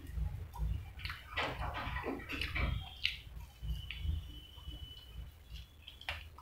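Close-up mouth sounds of a man eating fried chicken drumsticks: wet chewing and lip-smacking, with a burst of smacks and bites about one to three seconds in.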